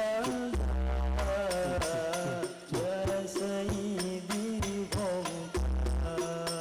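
Shalawat-style devotional music over a sound system: a wavering, ornamented melodic line over a steady beat of percussion with jingles, with deep bass notes that come and go.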